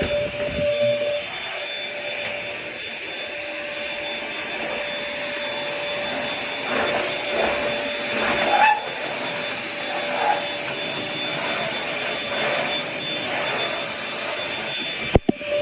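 Corded vacuum cleaner running steadily with a constant whine, its noise swelling and easing as it is pushed over the floor. A sharp click near the end.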